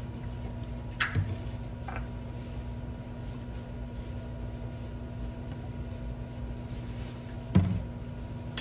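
Steady low hum of a kitchen, with a few soft knocks of a bowl and olive-oil bottle being handled while oil is added to a herb and spice mix, the strongest knock near the end.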